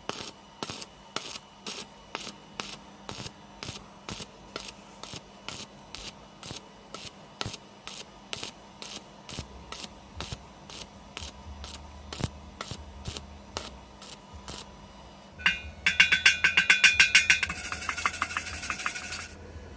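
Background music with a steady beat of about three clicks a second, with bass notes coming in partway through. Near the end a loud, dense crackle runs for about four seconds and stops suddenly.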